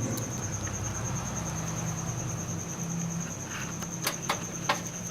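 Steady low hum with an even, high pulsing trill throughout. About four seconds in come three light, quick clicks from small hardware being handled during desktop computer assembly.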